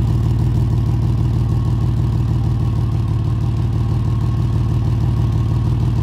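Car engine running steadily with an exhaust leak: a loud, deep rumble from the exhaust with fast, even pulsing.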